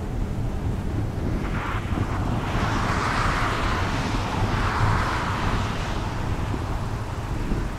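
Wind buffeting the camcorder microphone with a steady low rumble. A rushing sound swells a second or two in and fades again a few seconds later.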